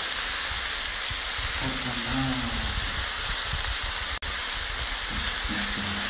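Whole fish frying in hot oil in a pan: a steady sizzle that cuts out for an instant a little after four seconds.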